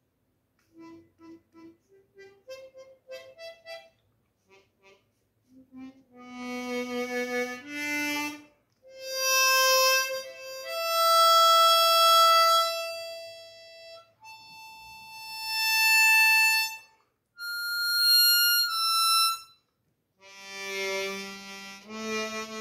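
Seydel Saxony orchestra chromatic harmonica with stainless steel reeds, played note by note as a check of response and air tightness. A few soft, short notes step upward, then louder long held notes follow across the low and high range. Every note sounds cleanly and answers to the slightest breath: the instrument is airtight.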